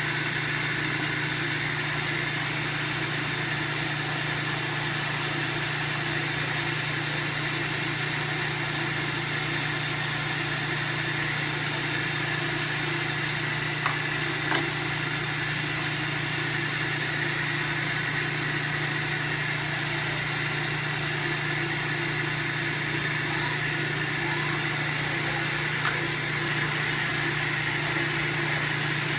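Steady hum of an electric kitchen appliance motor running without change, with two small knocks about halfway through.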